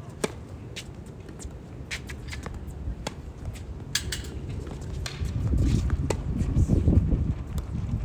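Tennis rally: sharp pops of rackets striking the ball and the ball bouncing, starting with the serve about a quarter second in and coming every second or so. A low rumble builds from about five seconds in.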